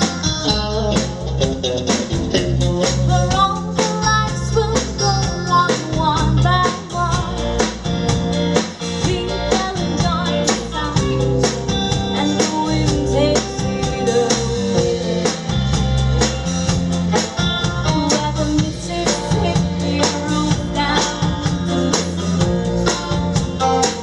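Live band playing with a woman singing lead over electric guitar, a drum kit and hand percussion, the drums keeping a steady beat.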